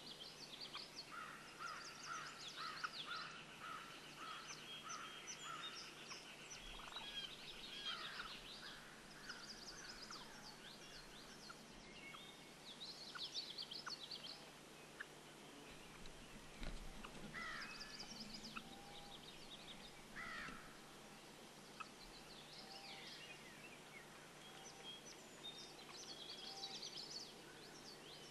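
Faint bird calls: many short high chirps and whistles scattered throughout, with a run of rapid repeated notes in the first few seconds.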